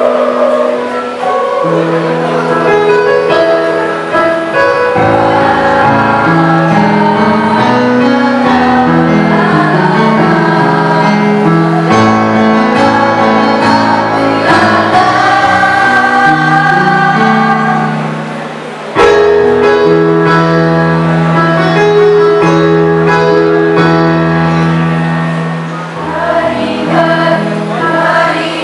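Junior high school choir singing in parts, holding sustained chords that move from note to note. About two-thirds through, the singing briefly fades and then comes back in strongly on a full chord.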